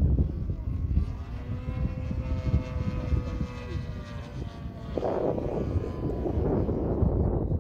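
The 30cc petrol engine and propeller of a 78-inch Pilot RC Edge 540 model aerobatic plane, flying overhead. The steady engine note rises slightly and then holds. About five seconds in it turns rougher and a little louder.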